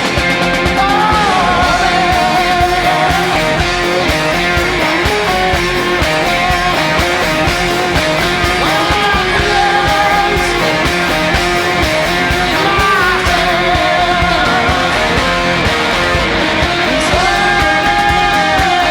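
Rock band playing live: drums and guitar with held, sliding sung notes.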